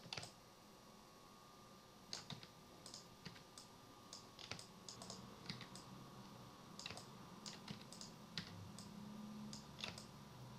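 Faint, irregular clicks of a computer keyboard and mouse being worked, a few keystrokes a second at times. A faint low hum comes in about halfway through.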